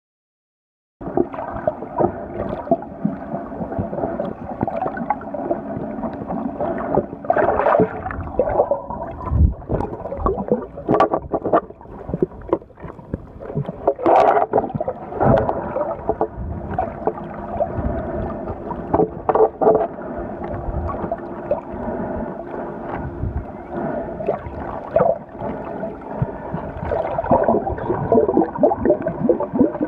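Muffled underwater sound picked up by an iPhone sealed inside a Lifeproof Nuud waterproof case: water sloshing and gurgling in irregular bursts over a steady droning hum, starting about a second in.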